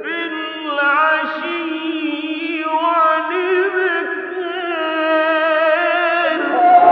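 A male Quran reciter chanting in the melodic mujawwad style, one long unbroken phrase with wavering, ornamented turns in pitch.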